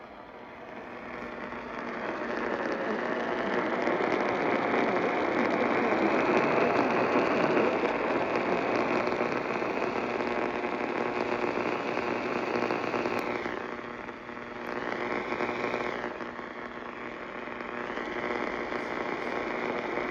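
AM radio reception noise: a steady hiss with crackle, swelling over the first few seconds and fading down and back up twice after about thirteen seconds, with a faint wavering tone under it.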